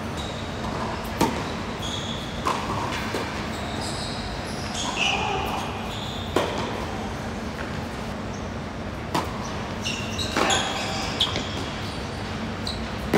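Tennis balls struck by rackets in a doubles rally: a series of sharp pops a second or a few seconds apart, with short high squeaks of shoes on the hard court between them, echoing in a large hall.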